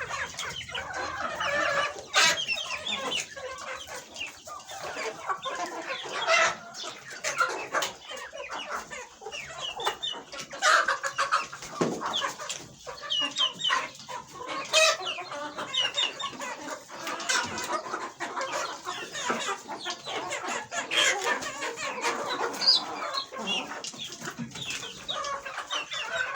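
A flock of chickens in a poultry house clucking and calling continuously, many birds at once, with scattered sharp clicks.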